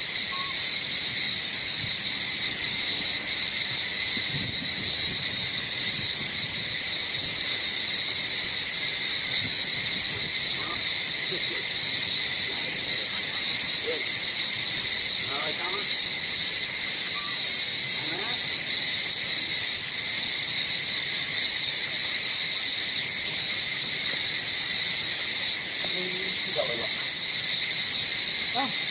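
Insect chorus: a steady, unbroken, high-pitched drone, with a few faint short chirps scattered through it.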